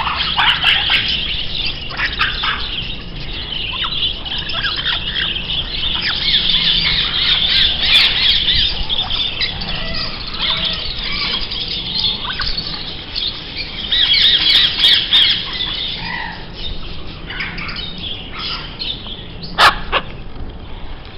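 A dense chorus of birds chirping and squawking, many quick high calls overlapping without a break, with one louder, sharp call near the end.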